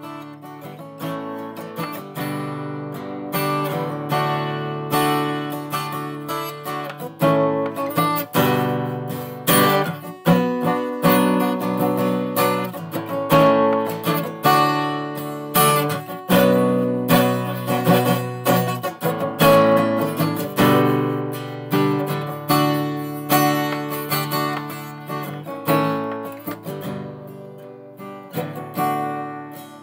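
Outro background music: acoustic guitar strumming and picking.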